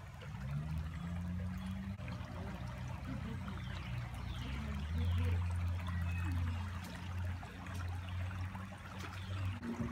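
Shallow creek water trickling and rippling over stones, with a low steady rumble underneath.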